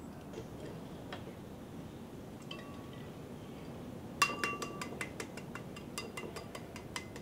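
An egg tapped against the rim of a white ceramic bowl: one sharp clink about four seconds in, then a quick run of lighter clinks, each with a brief ringing tone from the bowl.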